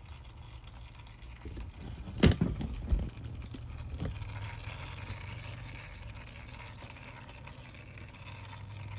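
A few knocks, then engine oil pouring out of the MechMaxx P4205 wood chipper's engine in a steady stream from about four seconds in. This is the first oil change of a new engine, done to flush out the metal flakes left from manufacturing.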